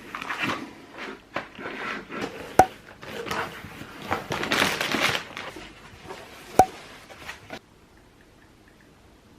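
Irregular rustling and handling noises with two sharp, ringing clinks about four seconds apart, stopping abruptly near the end.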